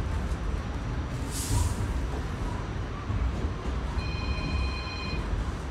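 R46 subway train rumbling, with a short hiss of air about a second and a half in and a steady high tone lasting about a second near the end.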